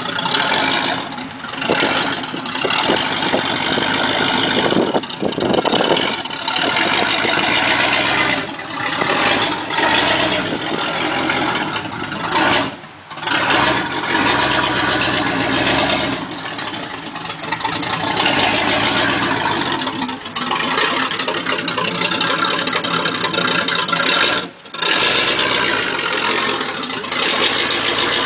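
1980 Camaro Z28's 305 cubic-inch V8 running loud through open headers with no mufflers, revved up and down repeatedly with short drops off the throttle.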